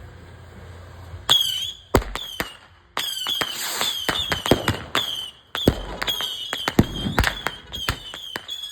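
Saturn missile battery firing in rapid succession: each shot goes off with a short high whistle followed by a sharp crack. The shots start about a second in and come several a second, with a brief pause near the middle.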